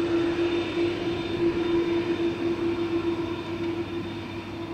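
Jet engines of an Airbus A300-600ST Beluga, its two GE CF6-80C2 turbofans running at low taxi power: a steady rumbling noise with a held engine tone over it.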